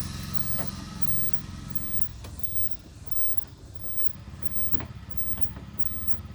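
A few light clicks and knocks as the fog lamp and plastic bumper parts are handled and fitted, over a low hum that fades about two seconds in.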